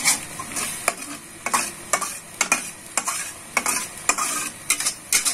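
Spatula scraping and stirring thick chili spice paste frying in a wok, about two strokes a second over a steady sizzle.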